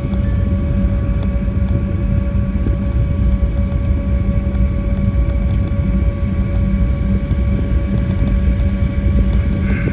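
Embraer E190 cabin noise with its two GE CF34-10E turbofan engines running: a steady deep rumble with a steady whine on top, heard from inside the cabin.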